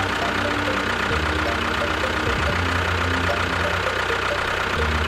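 An engine idling steadily with a low, even chugging beat.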